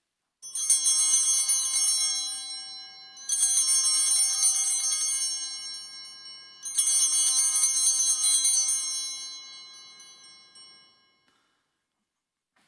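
Altar bells (a cluster of Sanctus bells) shaken three times, each a bright jangling ring that fades over two to four seconds. They mark the elevation of the chalice at the consecration of the Mass.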